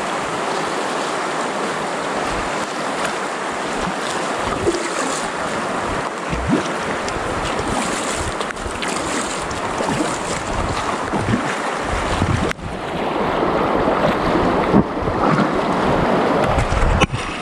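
Fast river water rushing steadily, with wind buffeting the microphone; it dips briefly about twelve seconds in and then comes back a little louder.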